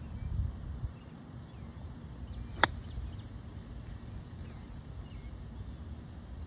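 A golf club strikes the ball once, a single sharp click about two and a half seconds in. Behind it are a steady thin high hum of insects and a low rumble.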